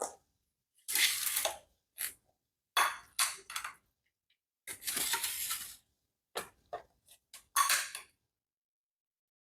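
Kitchen dishes and utensils being handled: a series of short clinks and clatters, with one longer scrape about five seconds in.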